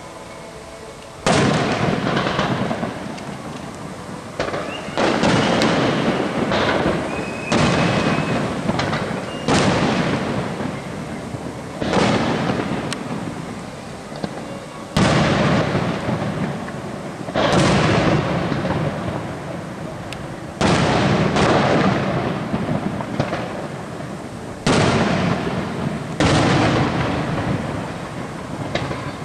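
Aerial firework shells bursting one after another, more than a dozen sudden bangs each followed by a long echoing decay, spaced one to three seconds apart and starting about a second in.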